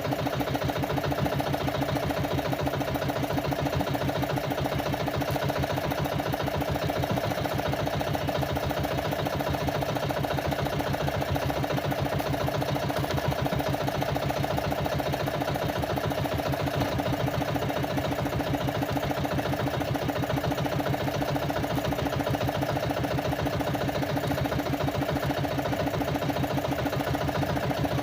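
Small fishing boat's engine running steadily at an even speed, with a fast regular firing pulse.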